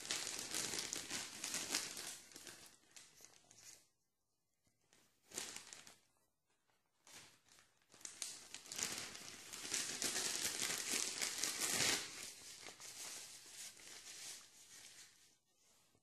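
Tissue paper being crumpled and rustled in long bursts, with two short pauses around four and six seconds in.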